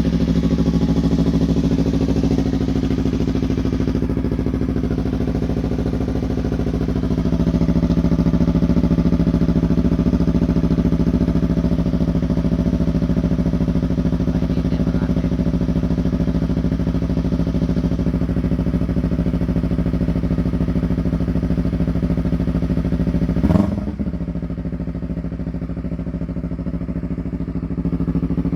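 2019 Yamaha R3's 321 cc parallel-twin engine idling through a Yoshimura full exhaust system, running steadily. The idle swells a little about seven seconds in. A brief sharp sound comes about 23 seconds in, after which it runs slightly quieter.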